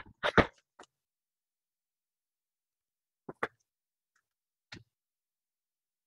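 Short, sharp clicks and light taps of a metal hinge and its screws being handled and a screwdriver set to them. Two clicks come close together near the start, with another just after. A pair follows about three and a half seconds in, and a single one near five seconds, with quiet between.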